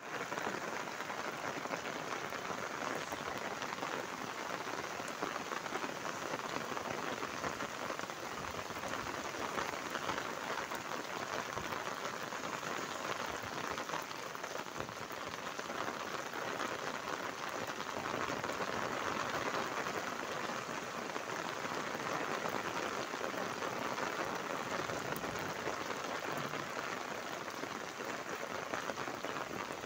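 Rain falling steadily on a concrete rooftop, an even hiss of many drops that holds without a break.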